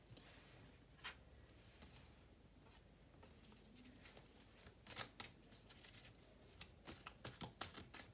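Faint shuffling and handling of a deck of tarot cards: soft scattered taps and rustles, one about a second in and a couple around five seconds, then a quicker run of them near the end.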